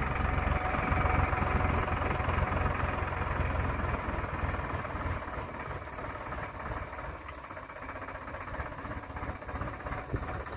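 Tractor's diesel engine running steadily as it pulls a tine cultivator between crop rows. The low rumble fades as the tractor moves away, and is much fainter after about halfway.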